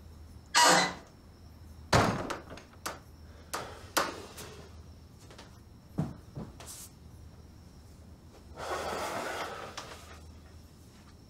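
A door opening and closing with a solid clunk, followed by a few light knocks and footfalls. Then about a second and a half of fabric rustling as someone sits down on a bed.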